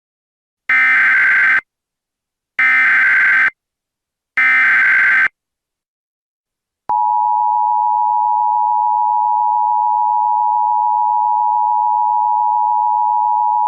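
Emergency Alert System SAME header: three identical bursts of warbling data tones, each about a second long. About two seconds later comes the EAS two-tone attention signal, a steady, loud dual-tone alarm.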